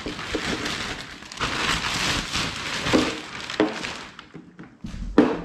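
Crinkling and rustling of a clear plastic bag as it is pulled off a cooler.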